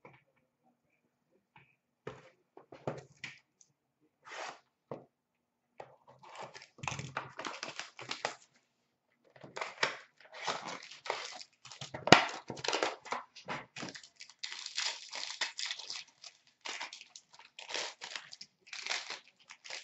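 Hockey card pack wrappers being torn open and crinkled by hand, in irregular bursts of crackling, with one sharp click about twelve seconds in.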